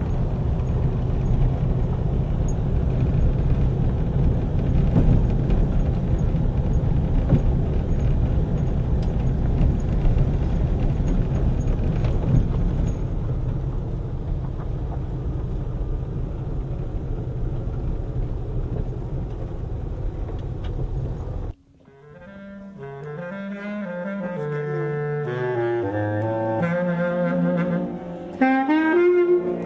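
A car driving with steady road and wind rumble heard from inside the cabin. About two-thirds of the way in this cuts off abruptly and music led by a wind-instrument melody fades in, growing louder near the end.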